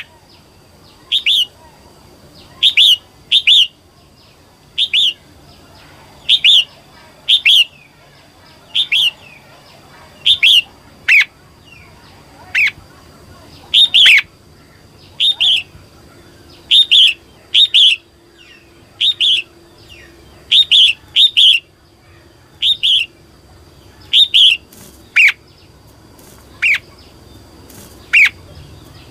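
Female red-whiskered bulbul calling: loud, short chirps repeated about every second or so, often in quick pairs. This is the call bird keepers play to rouse male bulbuls.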